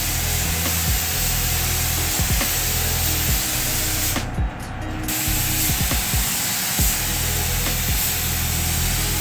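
Air spray gun hissing steadily as it sprays car paint, with the trigger let off for under a second about four seconds in. Background music plays underneath.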